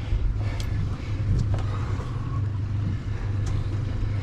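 Twin Honda outboard motors idling with a steady low hum, with a few faint clicks over it.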